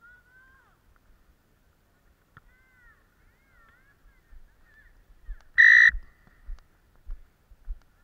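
A single short, shrill referee's whistle blast about two-thirds of the way through, over light birdsong chirping. Low thuds of running footsteps follow the whistle.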